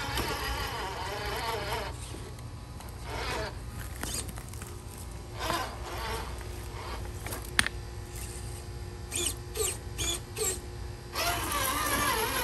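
Traxxas TRX-4 RC rock crawler's electric motor and geartrain whining, its pitch rising and falling with the throttle as it crawls over rocks, with scattered clicks and knocks of tyres and chassis on stone and one sharp knock near the middle. The whine drops away for several seconds and comes back strongly near the end.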